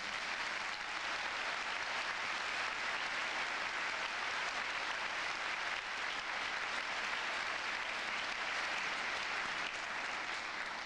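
Theatre audience applauding steadily after the end of a musical number, a dense, even patter of many hands clapping that stops abruptly near the end.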